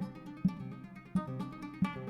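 Background music: acoustic guitar strummed and plucked in a Spanish or flamenco style, with a steady rhythm.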